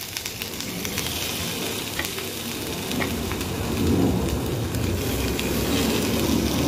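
Oil-coated tomato halves sizzling on a hot tawa over a gas flame, with scattered crackling pops. The sizzle grows louder about two-thirds of the way through.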